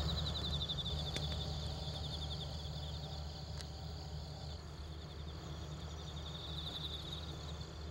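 Crickets chirping in a continuous fast-pulsing trill, with a fainter, higher insect trill coming and going and a steady low hum underneath.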